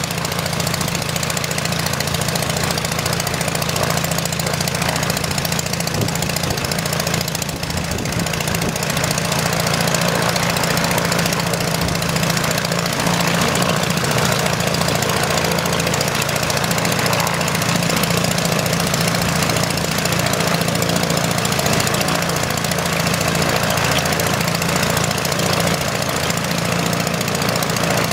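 Piston engine of a replica Port Victoria PV8 Eastchurch Kitten WW1 naval fighter running steadily at idle.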